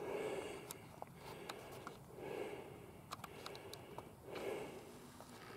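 A person breathing softly close to the microphone, breaths coming about once a second, with a few faint clicks.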